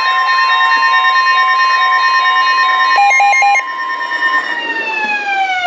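Emergency Alert System alarm tones: several steady tones sound together, with three quick beeps about three seconds in. Then the steady tones stop and a tone slides steadily downward in pitch near the end.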